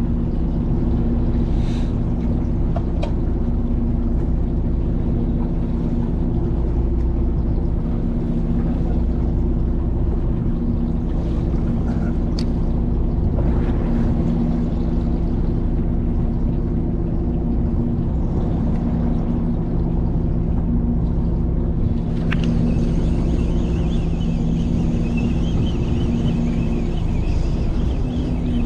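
Fishing boat's engine running steadily with a low, even hum. A faint higher whine joins about three-quarters of the way through.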